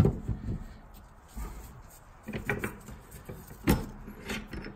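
Short metal clanks and knocks from a bench vise being tightened, its sliding T-handle clacking as it is turned to clamp a diesel fuel filter in the jaws. A sharp knock comes right at the start, and a few more clicks and clanks follow in the second half.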